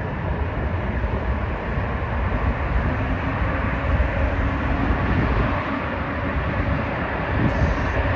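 Jet engine noise from an arriving McDonnell Douglas MD-11 trijet: a loud, steady noise, heaviest in the low end, with no distinct events.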